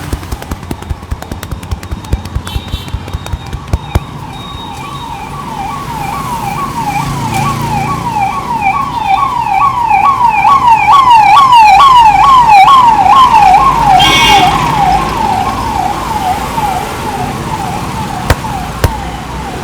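Emergency vehicle siren passing, a fast repeating up-and-down wail at about two to three sweeps a second. It grows louder towards the middle and then fades away.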